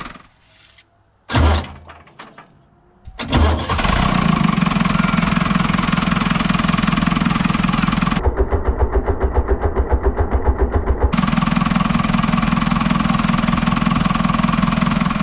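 Tractor engine starting: two short loud bursts a couple of seconds apart, then the engine running steadily. Through the middle the running turns into an even throbbing at about eight beats a second, and then it steadies again.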